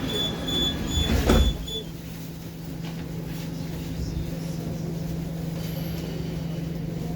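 Metro car door-closing warning beeps, a high tone repeating about twice a second, then the sliding doors of the 'Baltiets' metro train slam shut with a thud about a second and a half in. After that comes a steady low electrical hum from the standing train.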